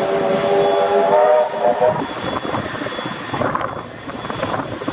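Steam locomotive whistle sounding several tones at once in one long blast that stops about two seconds in, then the locomotive working its train along the track.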